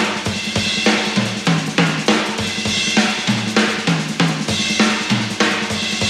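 Jazz drum kit solo: rapid, dense strokes moving between snare, tom-toms tuned to several pitches and bass drum, over a steady wash of ride and crash cymbals.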